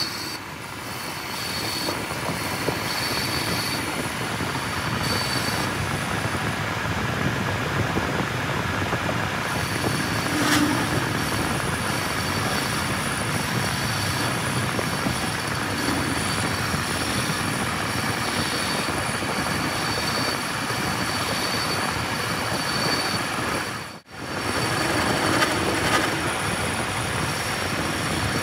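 Metal lathe turning a truck engine piston, its tool bit cutting the piston-ring grooves: a steady machining noise with a thin high squeal that comes and goes. The sound breaks off briefly about 24 seconds in.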